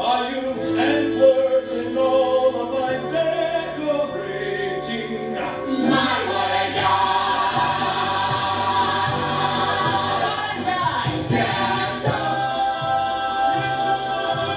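Show-tune ensemble number: a chorus of voices singing together over band accompaniment with a walking bass line, growing fuller about halfway through.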